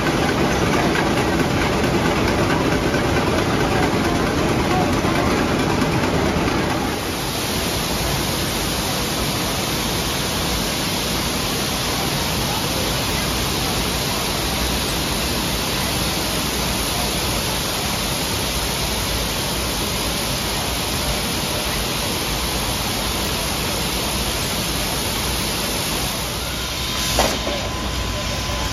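Wool-mill yarn machinery running: spinning and winding machines giving a steady, dense mechanical din. About seven seconds in the sound shifts from a fuller, lower noise to a higher hiss, and a brief sharp clack comes near the end.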